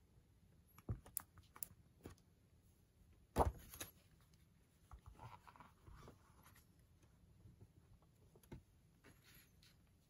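A paper magazine being closed and set down on a wooden table. Several light taps, one louder thump about three and a half seconds in, then soft paper rustling and an odd tap as hands settle it.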